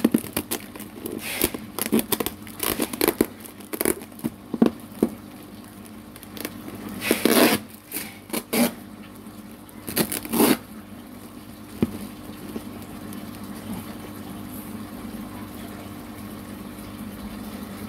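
Plastic fish-transport bags crinkling and rustling as they are handled and unpacked, in irregular bursts through the first ten seconds or so, over a steady low hum.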